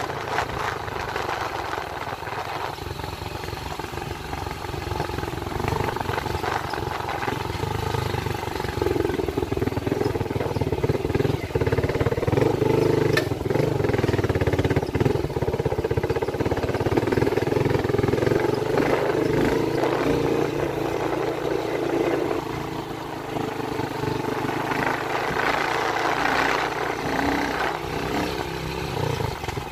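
Motorcycle engine running as the bike rides along a rough, muddy dirt road, getting louder from about nine seconds in and easing off a little after about twenty-two seconds.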